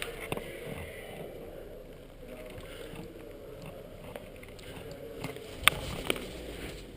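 Steady low rustling of movement, with two sharp cracks about half a second apart near the end.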